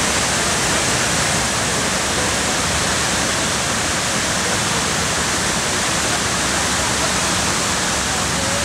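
Steady, even rush of water cascading down the walls of the 9/11 Memorial reflecting pool into the basin.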